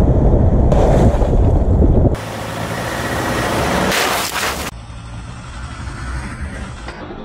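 Tyre and wind rumble of a car rolling over a rough dirt road, heard from a camera mounted low beside the front wheel. About two seconds in it cuts off abruptly to a quieter hiss that builds to a short, loud crashing burst around four seconds in, then settles to a low murmur.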